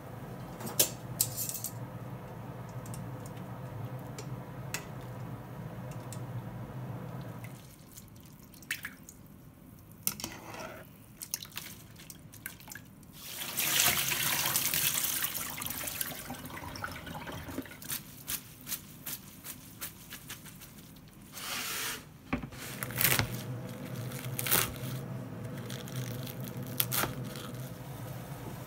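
Kitchen water sounds. A pot of water boils steadily on a gas burner, with scattered drips and small knocks. About fourteen seconds in comes a loud two-second rush as soba noodles and their water are poured from a bowl into a plastic colander in the sink.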